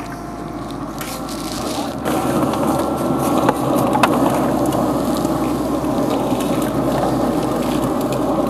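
Pellet smoker at cooking temperature running with its lid open: a steady, dense noise that builds over the first two seconds and then holds, with two light clicks around three and four seconds in as the meat and tray go onto the grate.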